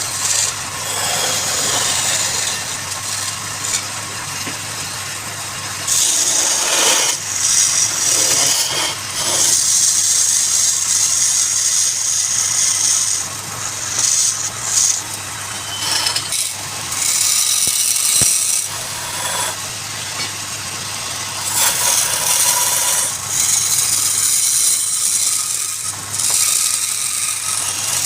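Wood lathe running with a steady motor hum, while a turning tool cuts the spinning wood in hissing, scraping passes of a few seconds each that stop and start.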